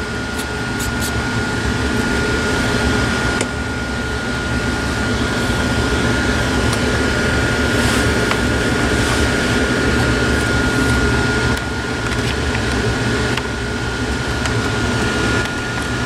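Steady mechanical hum and rush of moving air, like a running fan, with a faint constant high whine and a few light clicks of handling.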